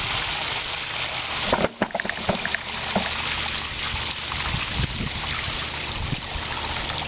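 Water gushing steadily out of a Shop-Vac wet/dry vacuum tank's open drain port as the full tank empties, with a few handling clicks and knocks about two seconds in.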